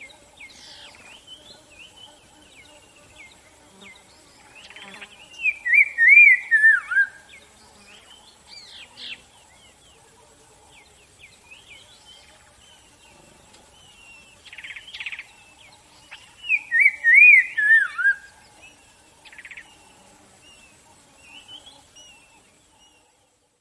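Several wild birds chirping and singing. A louder descending warbled phrase is sung twice, about ten seconds apart, among softer scattered chirps, and the birdsong fades out near the end.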